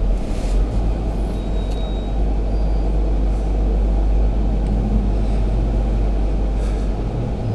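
Steady low rumble of a Jeep Grand Cherokee Overland crawling slowly along a dirt trail in four-low, heard from inside its cabin.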